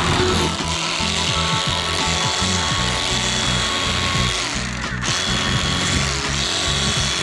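Electric fillet knife running as it cuts through fish, a steady motor buzz, with background music underneath.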